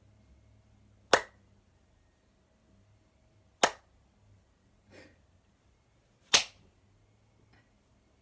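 One person clapping slowly: three sharp, loud hand claps spaced about two and a half seconds apart, with two fainter claps between and after them.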